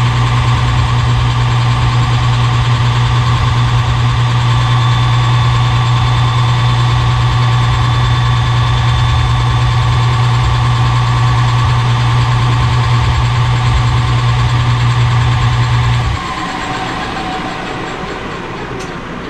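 Metal lathe running steadily with a low motor hum and a steady whine while turning a spacer down to size; about 16 seconds in it is switched off and winds down.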